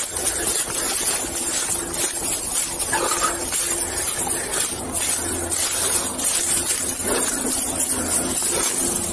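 Body-camera sound of footsteps and rustling through dry leaf litter while following a tracking dog on a lead, over a steady hiss and a low steady hum.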